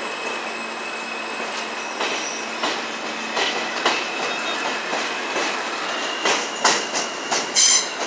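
New York City subway train running on a curved elevated track: steady wheel and rail noise with thin high-pitched wheel squeal. In the second half come a series of sharp clacks and short screeches, growing louder, with the loudest screech near the end.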